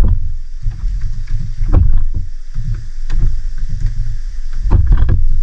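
Uneven low rumble of wind and water around a small fishing boat at sea, with a few sharper knocks.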